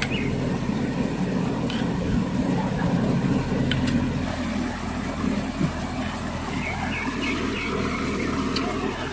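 Steady rush of a shallow rocky stream flowing over stones, with a few faint high chirps near the end.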